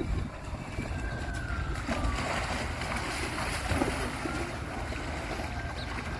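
Low rumble and hiss of wind on the microphone, with a faint tone that falls in pitch about a second in.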